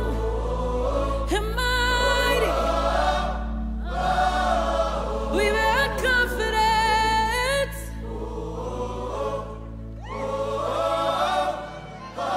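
Contemporary worship song sung by a choir of voices in held, sustained phrases over a steady low keyboard pad, with a softer passage partway through.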